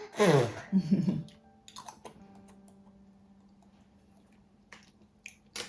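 A few separate light clicks and taps of tableware during a meal, the sharpest near the end, over a faint steady hum.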